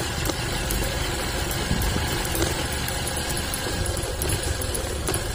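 Vehicle engine running steadily while travelling along a rough dirt road.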